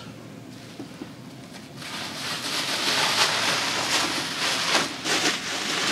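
Packing wrap rustling and crinkling as it is handled while vacuum tubes are taken out of it. It starts about two seconds in and grows louder.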